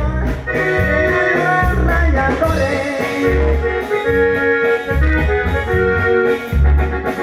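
Live corrido band playing an instrumental passage: held melody notes over a bass line that pulses at a steady beat.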